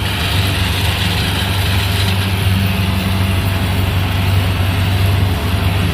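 A harvesting machine's engine running steadily with a deep, even hum and a wash of mechanical noise.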